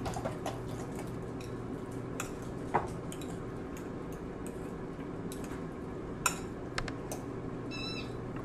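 A fork clinking and scraping now and then against a mixing bowl while stirring raw chicken pieces in beaten egg. Under it runs the steady hum of an air fryer preheating.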